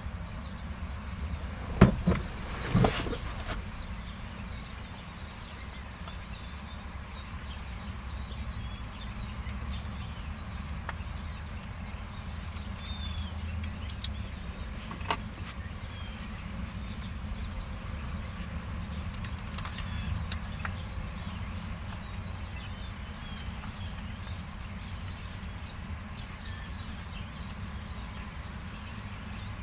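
Two sharp knocks about two and three seconds in, and a fainter one about halfway through, over a steady low rumble with faint high chirping.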